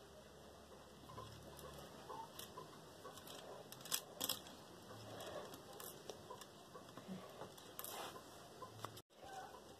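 Faint clicking and rattling of acrylic beads and rustle of fingers on the beadwork as the beaded piece, strung on nylon thread, is handled and pulled tight. A couple of sharper clicks come about four seconds in.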